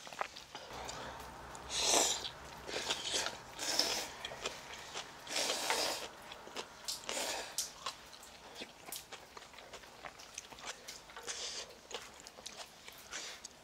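People slurping ramen noodles and spicy broth in several bursts of about half a second each, with chewing between them.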